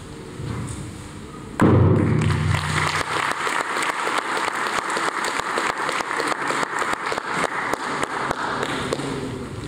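A sudden heavy thud about one and a half seconds in, then audience applause, a dense run of claps with some sharp ones close by, dying down near the end.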